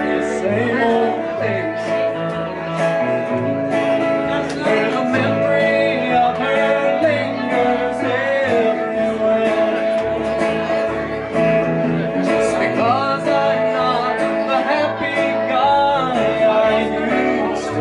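Small acoustic band playing live: upright bass moving through low notes under a strummed acoustic guitar, with a man singing.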